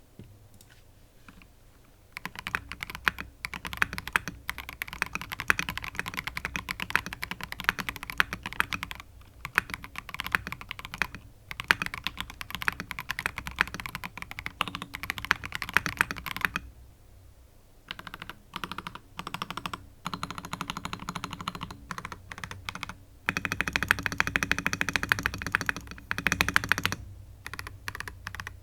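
Typing on a stock Mojo68 plastic gasket-mounted mechanical keyboard with Gateron Pro White switches and double-shot ABS keycaps. Rapid, continuous keystrokes begin about two seconds in and stop briefly a little past the middle. Slower separate presses follow, then another fast run near the end.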